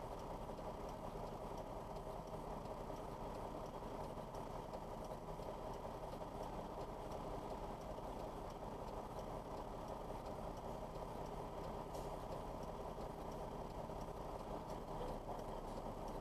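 Semi-truck diesel engine idling steadily, a low even drone heard from inside the cab.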